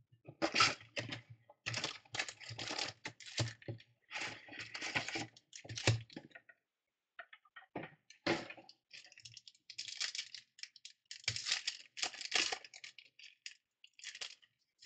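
Foil-wrapped trading card packs and their cardboard box being handled: bursts of crinkling and rustling wrapper and cardboard noise, with a short pause about two-thirds of the way through. Near the end a pack is being opened.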